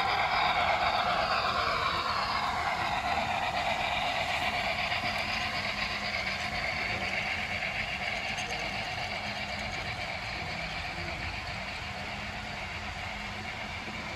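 HO scale model freight train, a steam locomotive pulling freight cars, running past on the layout track. The sound is loudest at first and fades steadily as the locomotive moves away.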